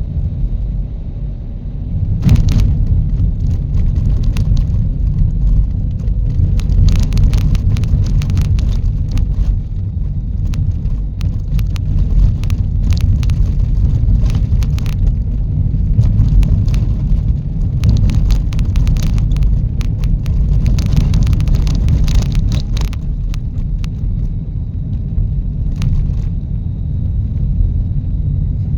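Car driving: a steady, loud low rumble of road and engine noise, with many short knocks and rattles from about two seconds in until about 23 seconds.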